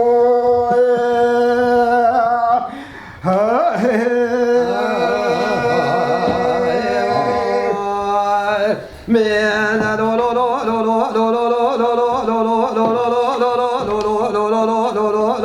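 Kurdish dengbêj singing: a single unaccompanied voice chanting a sung recitation in long held, ornamented notes, with two short breaks for breath about three and nine seconds in.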